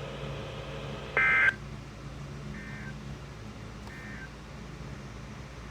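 Emergency Alert System end-of-message code: short bursts of SAME digital data tones marking the end of the alert. There are three bursts about 1.3 seconds apart; the first, about a second in, is loud and the next two are much fainter. A low steady hum runs under them.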